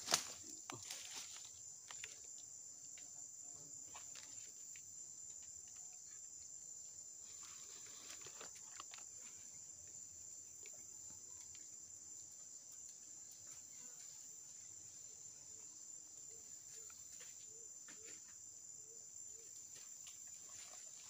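Insects singing in a steady, high, even drone, faint throughout. A single sharp knock comes right at the start.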